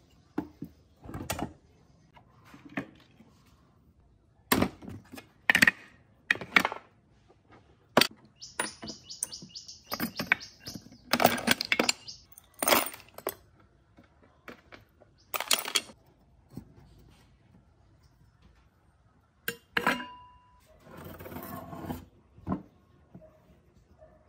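Metal parts and tools being handled during a circular saw restoration: scattered clinks and knocks, with a run of rapid, even ticks lasting about two and a half seconds near the middle, and a brief scraping near the end.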